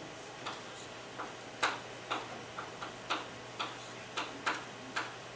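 Chalk writing on a blackboard: a string of short, sharp taps at uneven spacing, about two a second, as each letter and dot is struck onto the board.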